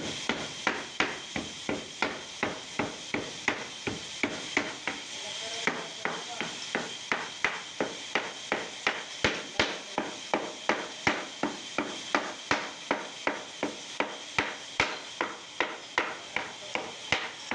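Hammer striking wood in a steady rhythm, about two blows a second, in handmade wooden door work. A faint steady high hiss runs behind the blows.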